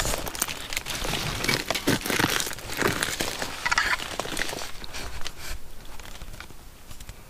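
Footsteps crunching and crackling through dry leaf litter and twigs on a forest floor, stopping about five seconds in and leaving only quiet background.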